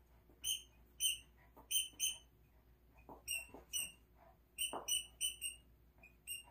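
Squeaky dog toy squeaking in about eleven short, high squeaks in quick clusters as a toy poodle bites and paws at it, with soft scuffing of the toy against the floor mat between squeaks.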